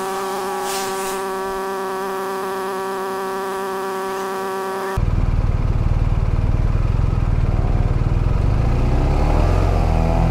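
A steady buzzing drone, then about halfway through a sudden switch to the loud low rumble of a BMW R1250RT motorcycle's engine and wind on the move. The engine's pitch climbs near the end as the bike accelerates.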